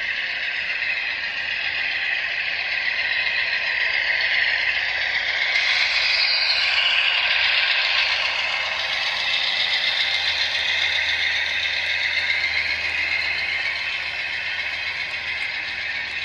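HO-scale model train running past on layout track: a steady whir and rattle of wheels and motor, loudest about six to eight seconds in as the Amtrak locomotive passes close by, pulling Kato Superliner cars.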